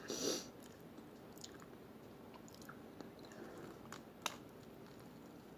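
Quiet, close-up chewing of a sub sandwich, with small mouth clicks and one sharper click a little past four seconds in.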